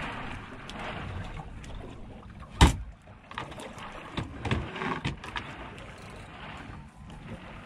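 Water slapping and lapping against the hull of a small drifting skiff, in irregular swells. A sharp knock about two and a half seconds in is the loudest sound, with a few smaller knocks a couple of seconds later.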